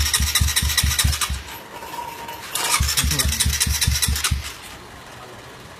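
Single-cylinder Honda CBR150 engine in a Supra 125 motorcycle being cranked over twice, each attempt about a second and a half of even chuffing turns, about five a second. The engine does not catch.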